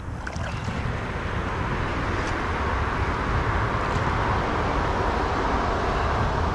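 Steady rushing noise that builds over the first couple of seconds: wind buffeting the microphone over flowing creek water.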